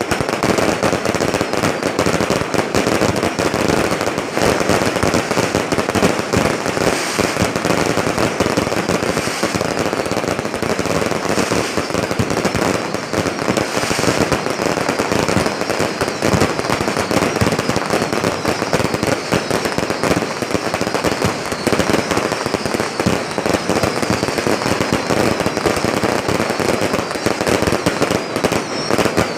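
Fireworks display going off in a dense, continuous barrage of rapid crackling bangs without any break.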